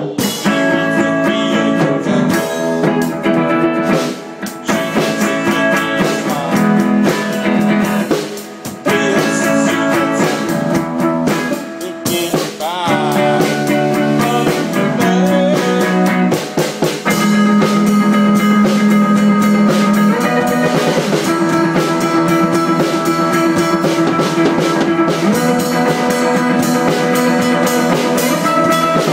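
A live band jamming on drum kit and guitar. The guitar holds sustained notes, with a few notes bending in pitch around the middle, over a steady drum beat.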